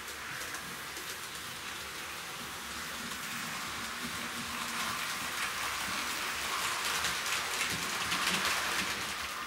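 Model train running on the layout's track: a hissing, ticking rattle of wheels on rail and the locomotive's motor that grows louder as the steam locomotive and its coaches pass close, loudest about eight seconds in.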